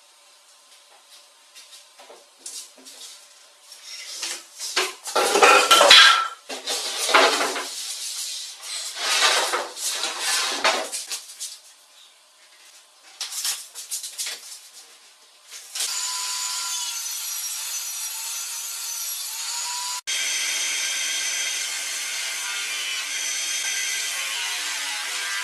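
Loud, irregular scraping and knocking of a large plywood sheet being handled on a wooden workbench, then a power tool running steadily from about two-thirds of the way in. In the last seconds a bench disc sander runs with a plywood edge held against the disc, sanding the end smooth.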